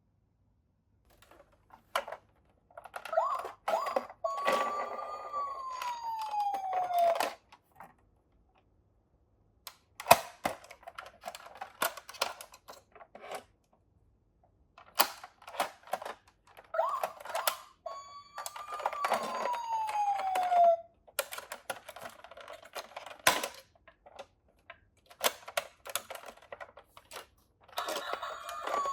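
Toy minicars clattering down a toy slope in bursts of rapid clicks and rattles, with short silences between runs. A whistle-like tone holds, then slides down in pitch, twice, and again near the end.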